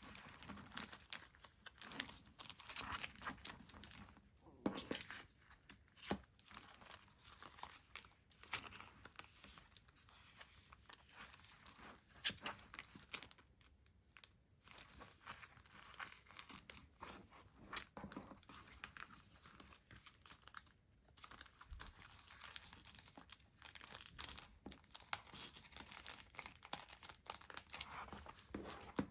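Packaging being handled and opened by hand: crinkling and tearing with scattered small clicks and taps, close to the microphone.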